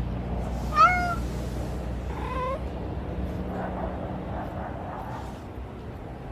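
A domestic cat meowing twice: a loud meow about a second in and a shorter, fainter one a second or so later, over a steady low background hum.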